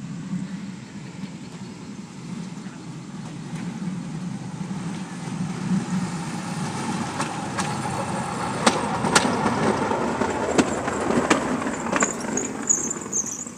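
Bamboo train (norry) approaching on the rails. Its small engine runs steadily and grows louder as it nears, with a run of sharp clacks from the car on the track in the second half. The sound eases off just before the end.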